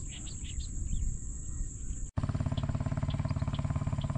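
Crickets chirping faintly over outdoor background noise; about halfway there is an abrupt cut, and a steady, low, pulsing drone takes over, louder than the chirping.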